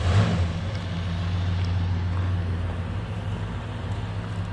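A motor vehicle engine idling nearby, a steady low hum, with a brief rush of noise fading in the first half-second.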